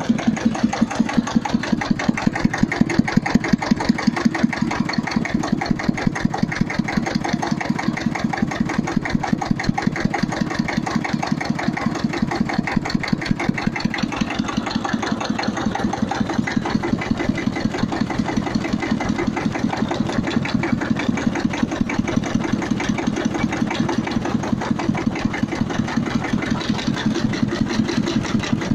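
Hebei tractor engine idling with a steady, even beat of rapid firing pulses.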